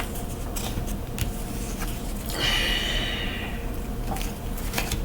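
A person breathing out heavily, like a sigh, about two and a half seconds in, with a few light clicks and a steady low hum.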